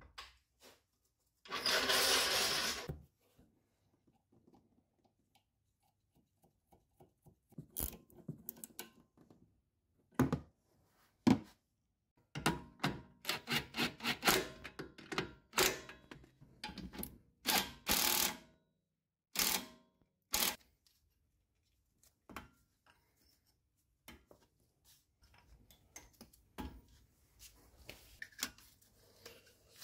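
Hand tools clicking and clanking on metal in irregular bursts while a coilover strut's top nut is worked by hand, with one longer rattling burst about two seconds in that is the loudest sound.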